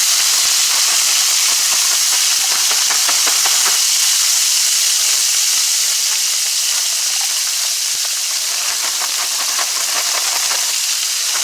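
Frozen vegetables sizzling loudly in hot oil in a stir-fry pan: a steady steamy hiss full of fine crackles, easing a little about halfway through.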